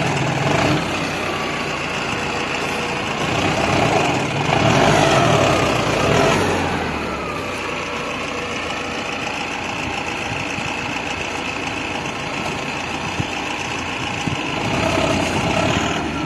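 Mahindra Arjun 605 DI tractor's diesel engine running under load while pulling a plough through dry soil. It swells louder about four seconds in, then settles back to a steady drone.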